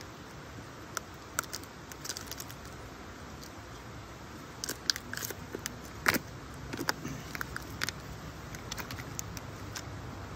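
Footsteps in sandals on stone steps strewn with dry leaves: scattered crunches and clicks, the sharpest about six seconds in, over a low steady outdoor hiss.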